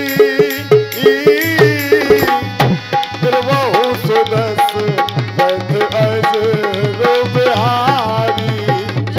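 Live rai folk music: a harmonium plays the melody over a fast, steady beat on hand drums.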